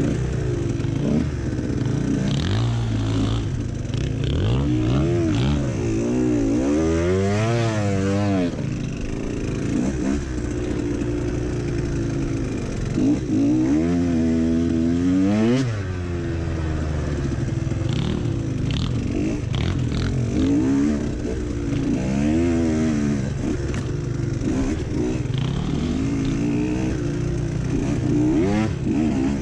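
Dirt bike engine revving up and dropping back again and again under changing throttle while riding rough off-road trail. The revs climb hard twice and cut off sharply, with scattered knocks and clatter from the bike.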